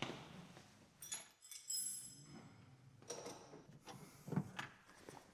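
Car battery being handled and set into a car's battery compartment: scattered clunks and scrapes, a brief metallic jingle about a second in, and a sharper knock a little over four seconds in as it is seated.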